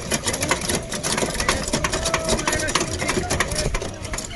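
Rapid, irregular clattering: many sharp clicks and knocks a second, with children's voices in the mix.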